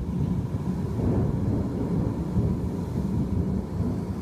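Heavy rainstorm heard as a continuous low rumble of wind and rain, with thunder.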